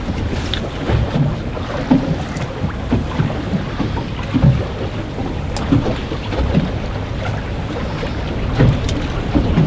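Strong wind buffeting the microphone as a steady low rumble, with waves slapping irregularly against a small fishing boat's hull and a few sharp clicks.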